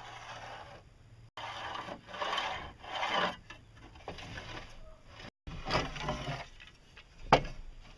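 Scratchy scraping strokes of a pencil and an aluminium spirit level rubbing along a rough sawn wooden board while a straight line is marked, several in a row. A single sharp knock near the end is the loudest sound.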